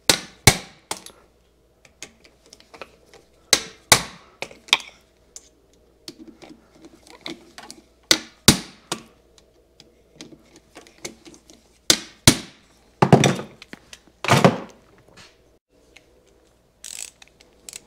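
Hand tools and small metal parts of a Kawasaki F7 motorcycle engine knocking and clicking during disassembly: about a dozen separate sharp clinks and thunks with short pauses between them, a loud cluster coming a little past the middle.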